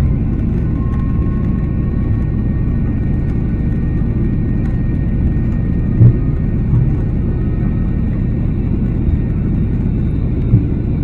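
Steady low rumble of an airliner cabin in flight, with a few short thumps, the loudest about six seconds in.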